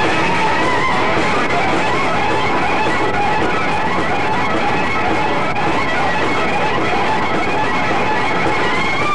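Rock band playing live, led by an electric guitar whose lead notes bend and waver over the rest of the band.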